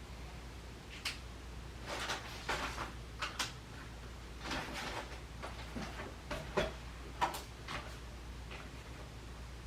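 Household objects being handled at close range: a scattered series of light knocks, clicks and rustles, over a steady low room hum.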